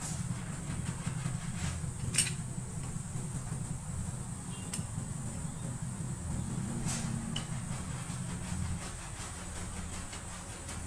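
A few sharp metallic clicks as a small screwdriver works on a motorcycle carburetor, the loudest about two seconds in, over a steady low mechanical hum and a faint high steady tone.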